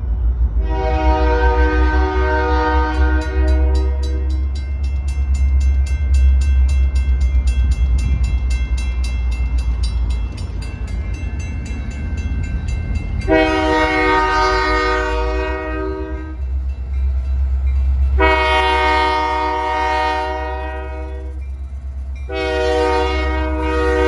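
Diesel locomotive air horn sounding four long blasts for a grade crossing, its chord of several tones held about three seconds each: one blast near the start, then after a long gap three more close together, the last still sounding at the end. A crossing bell rings steadily in the gap, over a low rumble that runs throughout.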